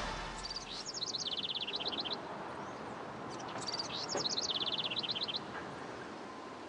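A small songbird singing twice, each song a few high notes dropping into a fast trill, over a steady hush of outdoor background noise.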